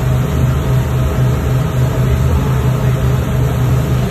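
Tour boat's engine running steadily while the boat is under way, a constant low drone.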